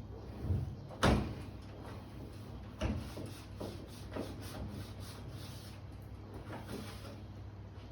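Knocks and clicks of things being handled during fridge cleaning: a sharp knock about a second in, another just before three seconds, then lighter taps and clicks.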